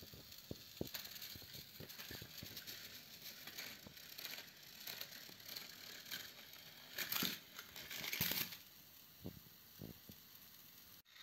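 Battery-powered plastic toy trains running on plastic track, with a steady run of small clicks and rattles. Two louder clattering bursts come about seven and eight seconds in.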